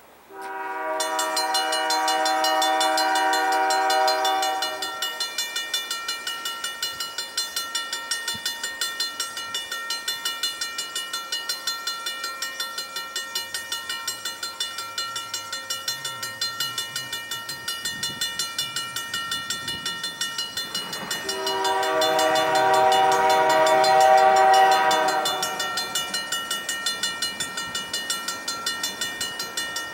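Diesel freight locomotive's multi-chime air horn sounding two long blasts, one just after the start and one about twenty seconds later, as the train approaches. Between and under the blasts a rapid ringing repeats a few strokes a second, and a faint low engine rumble comes in midway.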